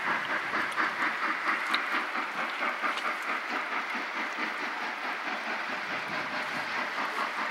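Exhaust beats of the JNR Class C62 steam locomotive C62 3, not yet in view, chuffing in a rapid, even rhythm over a steady hiss.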